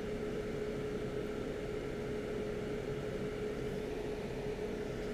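Hot air rework station blowing steadily: an even rush of air with a constant hum. It is a long, low-heat pass to reflow dry solder paste into balls on a BGA reballing stencil.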